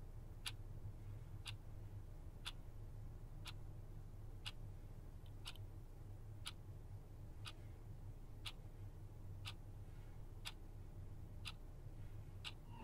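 Clock ticking steadily, once a second, over a low steady hum.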